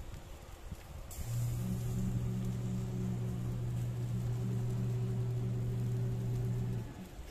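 Small electric blower fitted to a modified charcoal stove, powered from a USB power bank, switching on about a second in and running with a steady low hum, then cutting off shortly before the end. It forces air into the burning charcoal.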